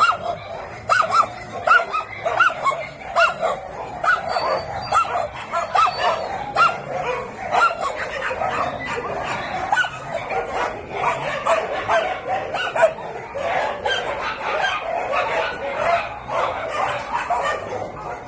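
Several dogs barking and yipping: a few separate high barks in quick succession at first, then a denser chorus of overlapping barks from about four seconds in.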